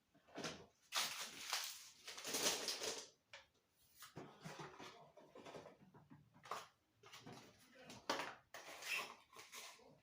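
Medicine boxes and packets being handled and moved about: irregular rustling with light knocks, coming in short bursts.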